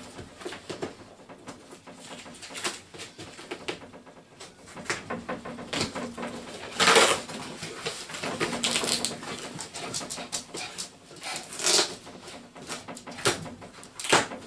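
Packing paper crinkling and rustling as a cardboard box of beer cans is unpacked by hand, with scattered knocks and scrapes of cardboard; the loudest crackle comes about seven seconds in.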